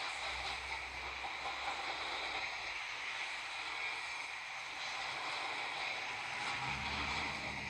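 Freight train cars rolling past on the rails: a steady wheel-on-rail noise that holds at an even level throughout.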